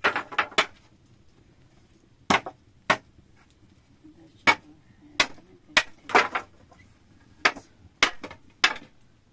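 A series of about a dozen sharp knocks at uneven intervals, a quick run of four at the start, then single knocks and close pairs.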